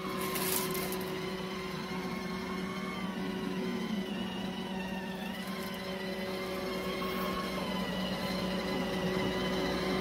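Robot vacuum running steadily as it cleans a shag carpet: a constant motor hum with a whine on top.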